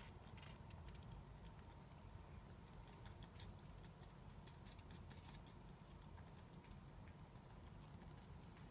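Near silence with faint, irregular little clicks and ticks from a pet hedgehog nosing at a leather shoe, over a faint steady hum.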